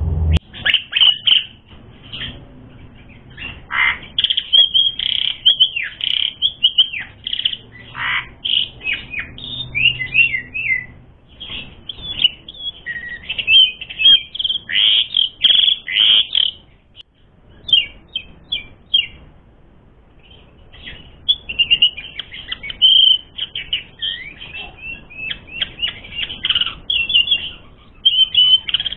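Asian pied starling singing a long, varied chattering song of whistled and rasping notes, thinning to a brief lull about two-thirds of the way through before resuming.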